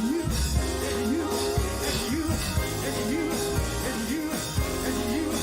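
Live church band music with a drum kit keeping a steady beat and a low line rising and falling about once a second.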